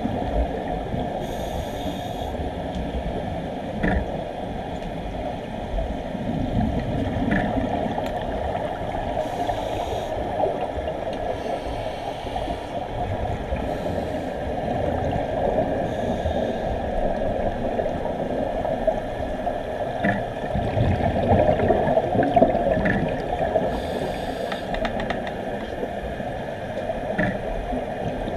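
Scuba divers' exhaled regulator bubbles gurgling and rumbling, heard underwater, with short hissing bursts every few seconds and a few faint clicks.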